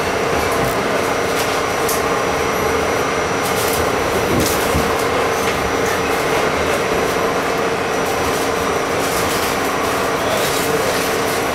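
R68 subway car heard from inside the car while running at steady speed: a loud, even rumble of wheels on rail with a constant hum, and a few clicks over the track.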